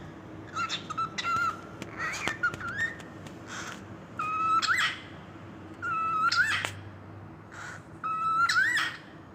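A cockatiel mimicking kissing sounds: short smacking clicks mixed with whistled notes, each held on one pitch and then rising at the end. The phrase is repeated about three times.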